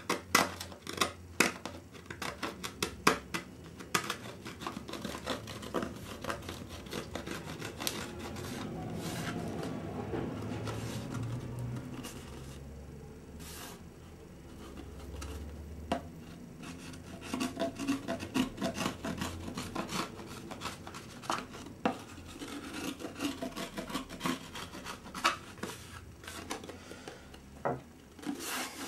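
A blade scraping and cleaning up the rough edges of a freshly demoulded glass-cloth fibreglass moulding: a run of short, irregular scrapes and clicks, with steadier rubbing in the middle.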